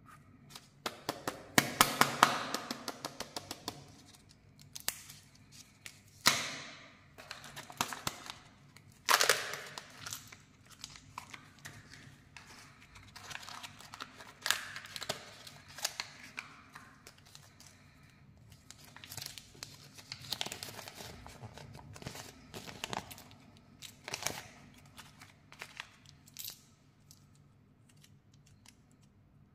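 Kinder Joy egg wrapper torn and crinkled, and its plastic egg shell and capsule clicked open: an irregular run of crackles, rustles and sharp snaps, the densest bunch a couple of seconds in. Small plastic toy parts click against each other near the end.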